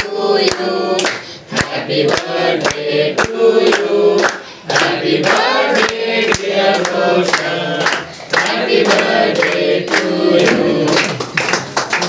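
A group of men singing a birthday song together, clapping along about twice a second.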